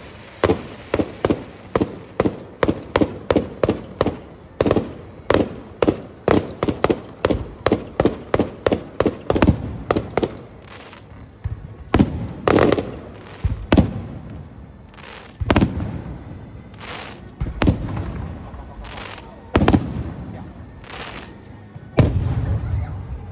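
Aerial fireworks shells bursting overhead. For the first ten seconds comes a rapid run of sharp bangs, about two or three a second; after that come fewer, heavier booms a second or two apart, each with a long rumbling tail.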